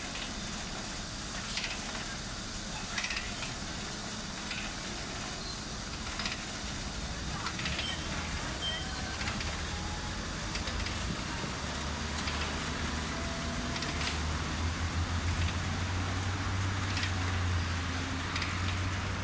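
A steady low motor hum that grows stronger in the second half, with scattered light clicks and knocks of metal being handled around a popcorn cannon as a sack is fitted over it.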